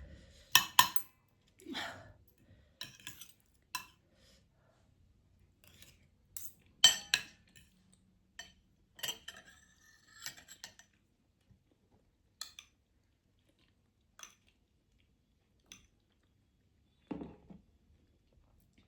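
Scattered clinks and taps of cutlery against dishes, loudest about a second in and again around seven seconds, with quiet gaps between. A short, lower sound comes near the end.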